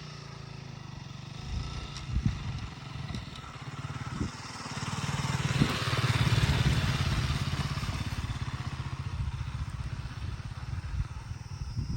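KTM Duke 200's single-cylinder engine running as the bike rides a rough off-road track, with a few knocks along the way. It gets louder about five seconds in, then settles back.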